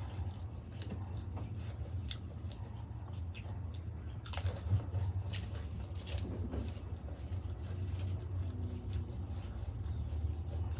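Close-up chewing and crunching of dahi golgappa, crisp fried puri shells filled with yogurt: many small crackles, with one louder crunch about four and a half seconds in. A steady low hum runs underneath.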